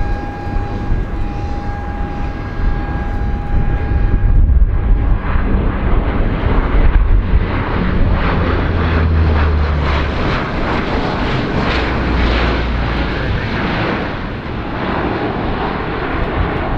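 The four turboprop engines of a Lockheed C-130H Hercules going by. For the first few seconds there is a steady high whine over a low rumble; from about five seconds in it becomes a louder, rougher propeller drone with uneven low throbbing.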